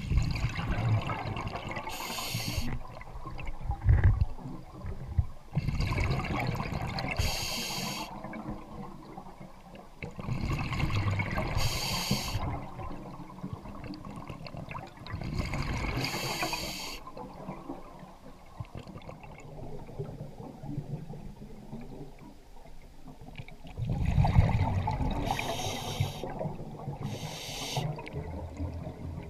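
Scuba diver's regulator breathing underwater: a hiss on each breath in and a rumbling, gurgling rush of exhaled bubbles, a breath every four to five seconds with a longer lull past the middle.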